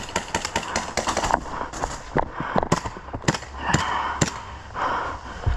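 Airsoft guns firing: many sharp cracks at an irregular pace, several a second, some in quick runs.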